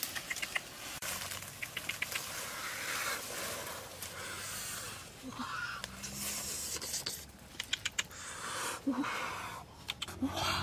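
Rustling of tall grass and dry leaves as a person pushes and crawls through undergrowth, with several short runs of sharp clicks.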